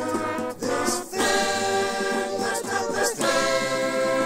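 Intro theme music sung by layered voices in held chords, a cappella style. The chords break off briefly about half a second in, again at about a second, and once more around three seconds in.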